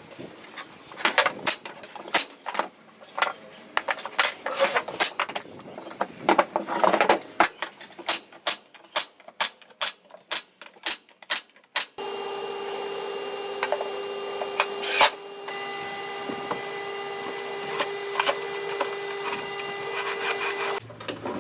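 Woodworking on wood: irregular knocks and scraping from hand work, turning into a quick run of even strokes, a little over two a second. Then, after an abrupt change, an electric power tool runs steadily with a constant hum.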